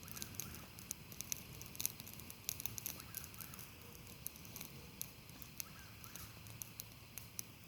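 Campfire of burning tree limbs crackling, with irregular sharp pops and ticks.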